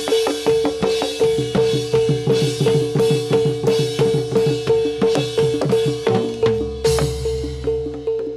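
Javanese gamelan accompaniment for jathilan, amplified: fast, even drumming at about four strokes a second, with low drum strokes that drop in pitch and a high metallic tone ringing on every beat. A crash sounds about seven seconds in.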